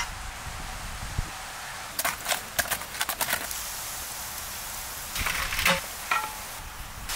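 Cauliflower pieces deep-frying in a large pan of oil, a steady sizzling hiss. A cluster of sharp clicks comes two to three seconds in, and a few louder clinks after about five seconds, as a metal slotted skimmer stirs against the pan.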